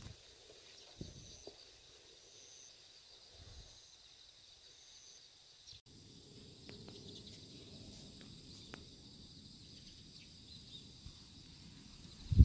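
Insects chirring in the garden, a steady high trill with short repeated pulses, as in late-summer crickets. There are a few soft low thumps in the first half, a low rumble from about halfway, and a single loud knock right at the end.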